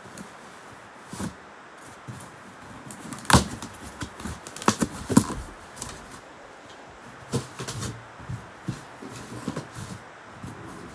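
Handling noises: a string of irregular knocks and clicks from objects being moved. The sharpest come in a cluster about three to five seconds in, with a few softer ones later.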